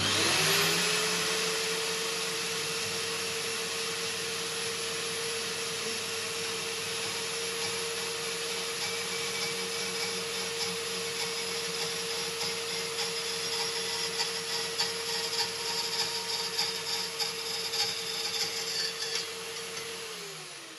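Scheppach portable band saw starting up and cutting through a thin aluminium profile: the motor spins up at the start and runs at a steady pitch under a rasping cut. The cut gets more uneven in the later seconds, and the saw is switched off and winds down at the end.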